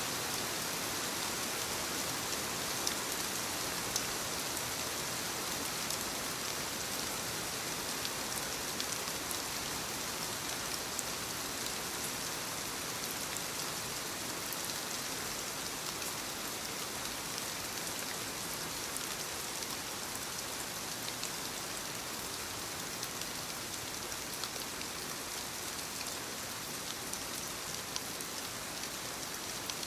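Soft rain falling on leaves: a steady hiss of rainfall with many small drop ticks scattered through it.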